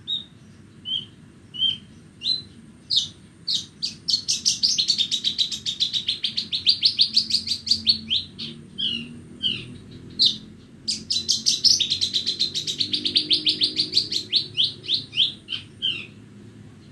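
Bornean branjangan (Horsfield's bushlark) singing: a few separate down-slurred whistled notes, then two long runs of rapid, repeated short notes, the song stopping shortly before the end.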